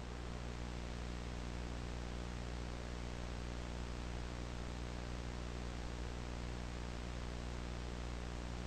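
Steady TV static hiss with a low electrical hum buzzing underneath: a colour-bar test-pattern sound effect.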